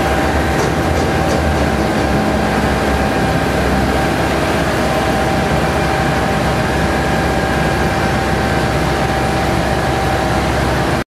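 Scania P320 fire engine's diesel idling steadily, a low rumble with a steady whine over it. It stops abruptly near the end.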